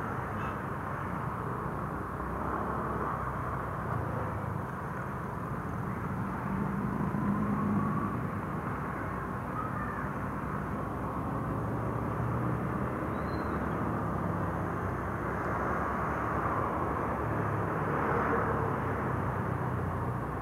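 Yamaha motorbike's small engine running while being ridden through traffic, with steady wind and road noise over it; the engine note shifts up and down with the throttle.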